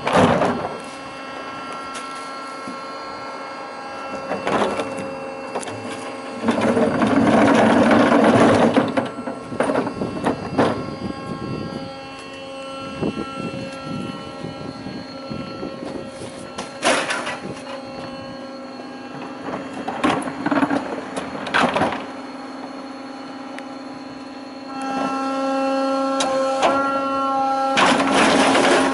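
Battery-electric Manco rear-load garbage truck working a bin stop: its electric-driven hydraulics hum with several steady tones, rising to a louder run twice as the bin lifter cycles, about 7 seconds in and again near the end while a wheelie bin is tipped over the hopper. Plastic wheelie bins knock and clatter against the lifter and kerb at intervals.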